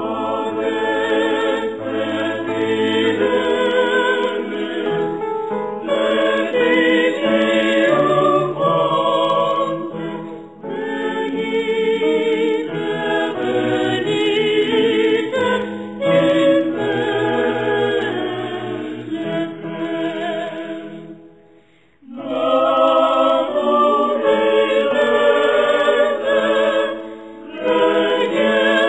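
A choir singing in sustained phrases, with a brief pause about three-quarters of the way through.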